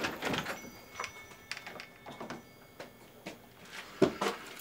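Scattered light clicks and knocks, then a heavier thump about four seconds in: a door and footsteps as someone walks into a small room.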